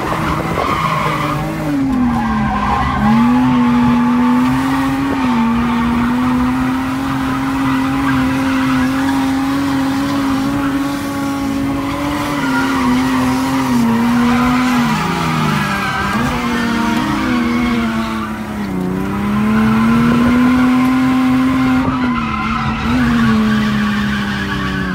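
Drift car's engine held at high revs while the tires squeal through sustained slides, heard from inside the cabin. The revs drop briefly and climb back a few times: about two seconds in, around fifteen seconds, and again near nineteen.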